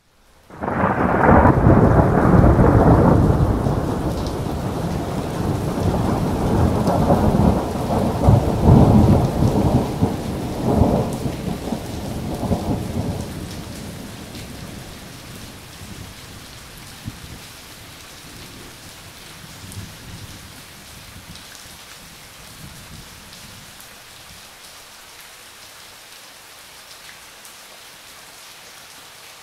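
A long roll of thunder starts about half a second in, rumbles with several louder swells and dies away after about thirteen seconds, leaving steady rain falling.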